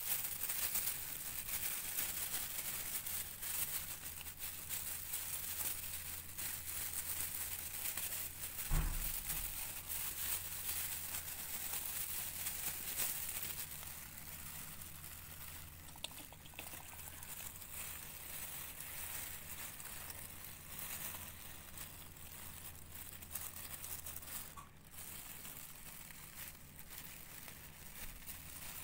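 Plastic bags worn as gloves crinkling, with tissue paper rustling, as hands handle a newborn kitten. A dull thump about nine seconds in, over a faint steady low hum.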